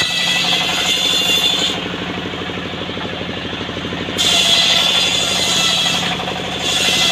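Large vehicle-mounted circular saw ripping trembesi (rain tree) wood. The blade's high cutting whine comes in three bouts: through the first couple of seconds, again from about four to six seconds in, and near the end. Underneath, the engine that drives the saw runs steadily.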